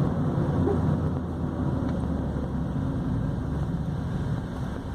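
Chevrolet Corsa Sedan's 1.8 four-cylinder engine running steadily under way, with road noise, heard from inside the cabin.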